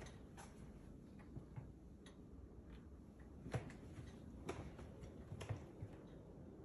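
Quiet footsteps on a hardwood floor: soft, irregular taps about once a second, the firmest about three and a half seconds in.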